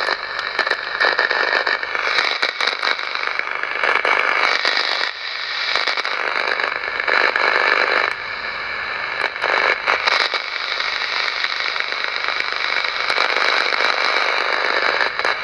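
Static from the loudspeaker of an AOR AR1000 scanner receiver whose antenna is held at the prongs of a power adapter's mains plug: crackling noise with steady whistling tones, swelling and dipping every couple of seconds. The owner takes it for interference from the TV antenna cable carried onto the mains plug.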